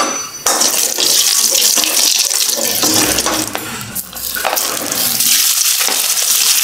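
Hot oil sizzling in a stainless-steel kadai, with a steady hiss. Near the end, raw potato slices are slid in from a plate and the sizzling grows louder.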